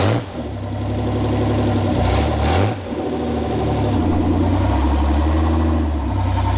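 The engine of a newly built, caged off-road vehicle running just after being started. It is revved briefly twice, near the start and about two and a half seconds in, then runs on with its speed shifting a little.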